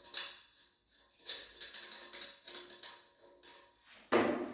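Light metallic clicks and scraping as a flexible hose's connector nut is turned by hand on a chrome angle valve, then a sudden loud knock near the end.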